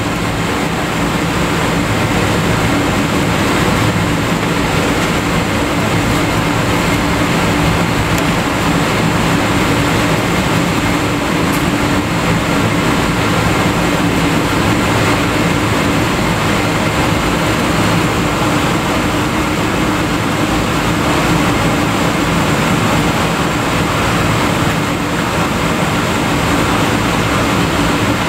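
Steady cabin noise of a Boeing 777-200ER taxiing, heard inside the cabin over the wing: its Rolls-Royce Trent 892 engines run at low thrust under a constant hum of a few low tones.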